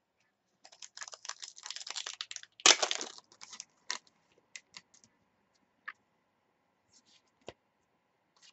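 Foil trading-card pack crinkling as it is torn open, loudest about three seconds in, followed by scattered light clicks of the cards being handled and flicked through.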